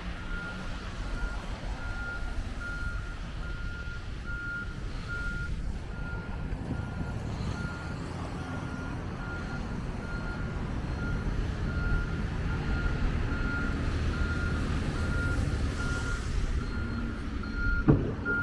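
Backhoe loader's reversing alarm beeping steadily at about three beeps every two seconds, over its diesel engine running. A single sharp knock near the end.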